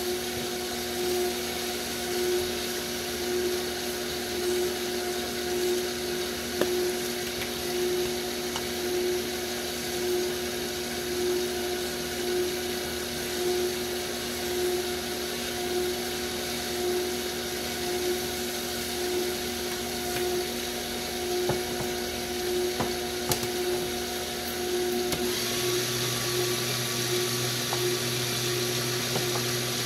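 KitchenAid multicooker stir tower's motor running with a steady hum, swelling and dipping about once a second as its stirring arm turns through the food. Near the end a louder hiss and a lower hum join in.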